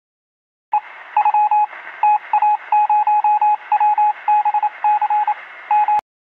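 Morse-code-style telegraph beeping: one steady tone keyed on and off in short and long beeps over a hiss of radio static. It starts just under a second in and cuts off suddenly near the end.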